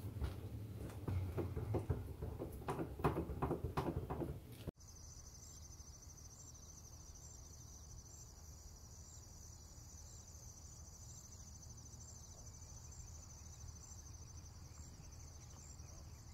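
A spatula stirring and scraping thick cheese sauce in a pan, with quick irregular knocks and scrapes. About five seconds in it cuts off abruptly, giving way to a steady, high-pitched, cricket-like chirring at a lower level.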